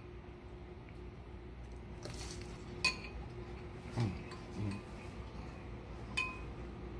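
A spoon clinking against a ceramic bowl of stew, twice, once about three seconds in and again about six seconds in.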